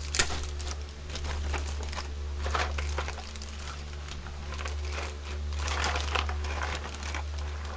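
Clear plastic bag of toy kitchen parts crinkling in a series of irregular rustles as it is handled, over a steady low hum.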